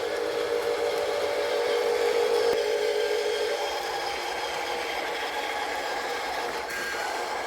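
Whine of the electric motors and gearboxes of radio-controlled construction machines at work, a steady whir that steps up to a higher pitch about three and a half seconds in.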